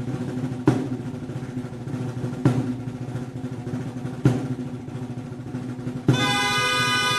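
Festival drum beating a slow pulse, one loud stroke about every two seconds over a low rolling background, while the reed pipes rest. About a second before the end, shrill reed pipes come back in with a drum stroke, starting the next tune.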